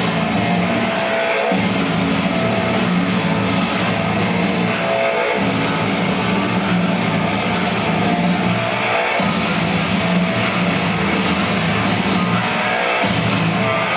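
Heavy metal music with distorted guitars and drums, loud and steady.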